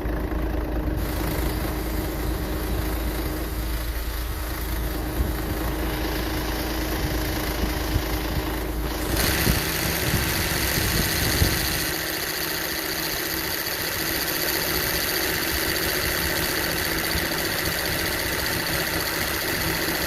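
Toyota 1-HD diesel engine idling in a Land Cruiser 80 Series with its AC compressor making an abnormal noise, which the owner has been told comes from an oversized compressor (size 17 instead of 15). About nine seconds in the sound changes abruptly, with steady high-pitched whining tones coming in.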